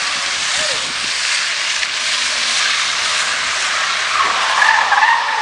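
A car being drifted: a loud, steady rush of engine and tyre noise, with a tyre squeal setting in about four seconds in and sliding in pitch.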